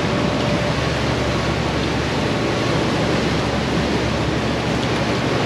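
Steady rush of wind and water over a low, constant engine drone, as of a fishing boat under way at sea.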